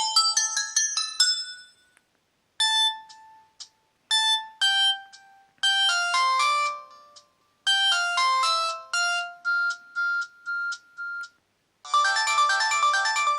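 Samsung E1120 mobile phone playing its preloaded ringtones one after another: a fast run of electronic notes ends about two seconds in, a slower tune of separate notes with short gaps follows, and a dense, fast melody starts near the end.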